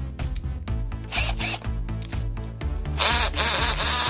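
Tool n Tool GTC-HD18V 18 V cordless hammer drill run in short trigger bursts, then for about a second near the end, over background music.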